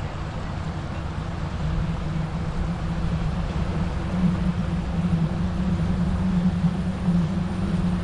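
Diesel train's engine running with a steady low drone, a little louder from about four seconds in.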